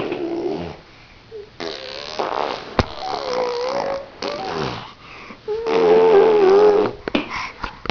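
A baby vocalising in long, wavering, pitched sounds rather than words, in three stretches, the last about two-thirds of the way in being the loudest.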